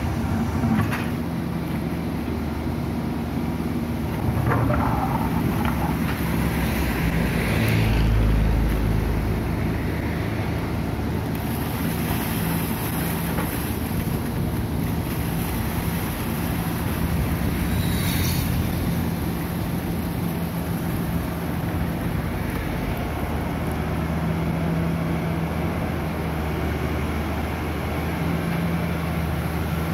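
Volvo EW145B wheeled excavator's diesel engine running steadily as its hydraulic arm digs mud and rubbish out of a drain and swings the bucket, the hum swelling under load about eight seconds in, with a few brief knocks and scrapes from the bucket.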